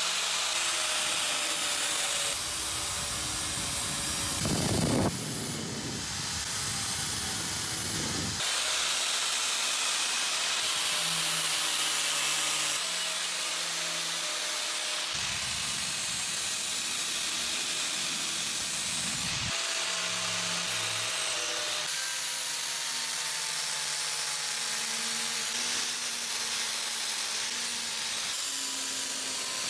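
Angle grinder with an abrasive disc grinding rust off the steel blade of a kukri: a steady hiss of abrasive on metal over the grinder motor's faint whine.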